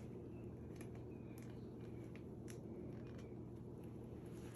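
Quiet room with a steady low hum and a few faint, light clicks.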